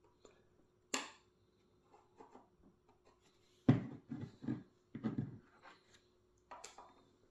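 Hands working a puzzle box and its pieces: a sharp click about a second in, then a cluster of knocks and rattles in the middle, and another click near the end.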